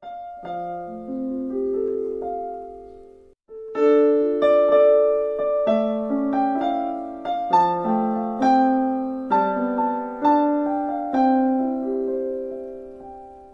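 Background music on solo piano: a soft phrase of notes, a short break about three seconds in, then a louder passage of melody over chords that fades out near the end.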